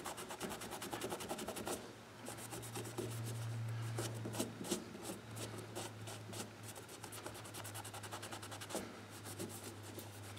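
Cotton rag dampened with gun-scrubber solvent rubbing back and forth on a rifle's steel barrel around the front sight, in quick repeated scrubbing strokes. The rag is cleaning marks off the barrel. A low steady hum runs underneath.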